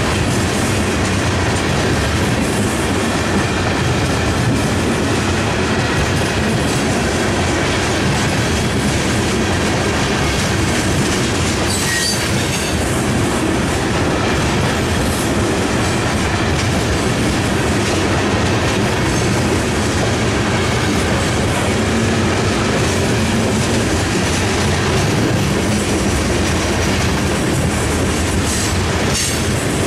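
A freight train of bathtub-style coal gondola cars rolling past close by: a steady rumble with the clickety-clack of steel wheels over the rail joints. A brief high wheel squeal comes about halfway through.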